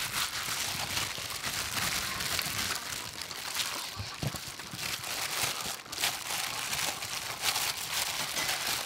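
Plastic bag crinkling and rustling continuously, with many small crackles, as a bag-covered hand squeezes and mixes chili marinade into chopped pig head meat in a metal bowl.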